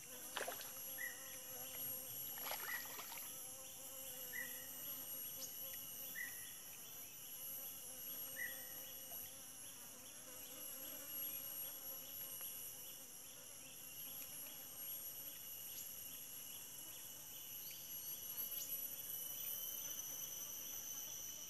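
Forest insects in a steady chorus, several high buzzing tones held throughout, one of them finely pulsing. A short chirp repeats about every two seconds for the first eight seconds or so, and there are two faint knocks in the first three seconds.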